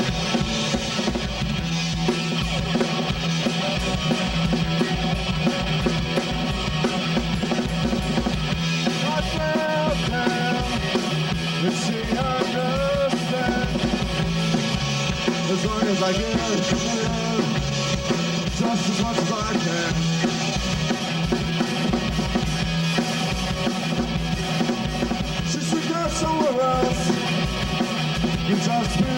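A rock band playing live: drum kit, electric bass and electric guitar in a loud, steady rock song.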